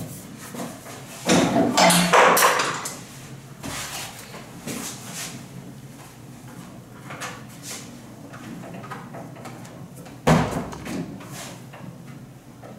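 Handling noises at a stainless-steel bakery worktable and dough mixer: scattered knocks and rustles, a louder stretch of clatter about a second in, and one sharp bang about ten seconds in.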